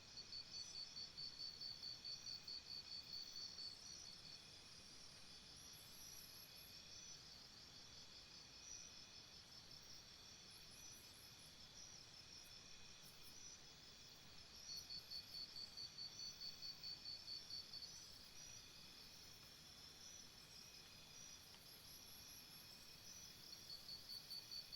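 Jungle insect chorus: a faint, steady high chirring of many insects, with a rapidly pulsing trill that swells in three times and a few brief very high chirps over it.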